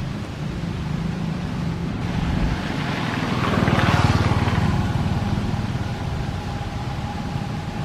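A motor vehicle passing by, its engine growing louder to a peak about four seconds in and then fading away.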